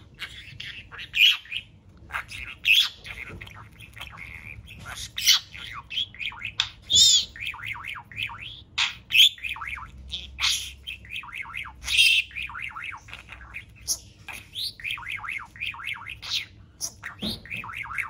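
Budgerigar warbling: a long, rapid chatter of short chirps and quick falling notes, with louder squawks every couple of seconds.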